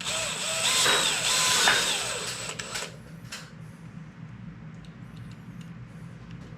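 Cordless drill driving screws, its motor whining in two spurts that rise and fall in pitch over about three seconds, then stopping.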